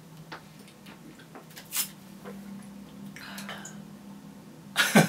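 Juice being drunk from plastic bottles: faint swallowing and small wet clicks, with a short slurp about two seconds in and a breath out a little later. A voice comes in right at the end.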